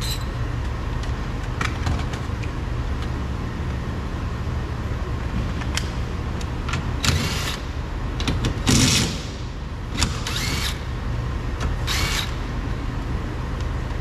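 Cordless power driver with a 10 mm socket whirring in four short bursts as it spins off the side mirror's mounting nuts inside the door, over a steady low shop hum.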